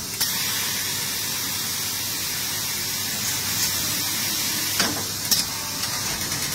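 Steady high hiss of an automated robotic welding line, with a couple of sharp machine clicks about five seconds in as the fixture shuttles the steel workpiece into the welding cell.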